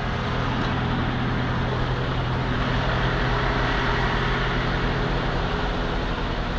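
Semi-truck diesel engine idling steadily with an even low hum.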